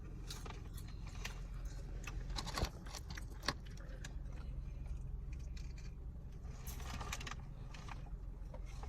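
Scattered clicks and rustles of food containers and wrappers being handled during a meal, over a steady low hum.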